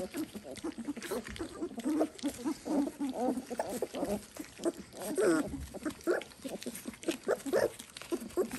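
Young Dalmatian puppies making many short squeaky and grunting calls in quick succession as they feed from a shared dish.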